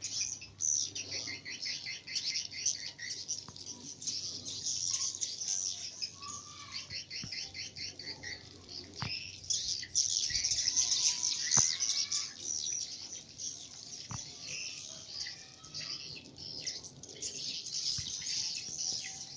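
Many small birds chirping and trilling at once in a dense, continuous chorus, with a few sharp clicks scattered through it.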